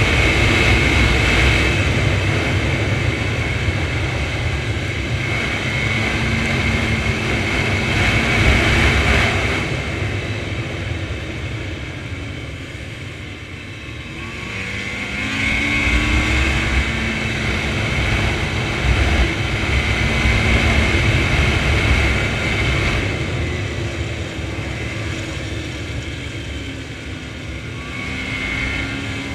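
Snowmobile engine running under way, easing off about twelve seconds in and then picking up speed again with a rising whine.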